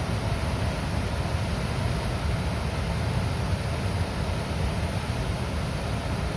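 Water released through a river dam's gates, rushing and gurgling in a steady unbroken noise with a deep rumble underneath.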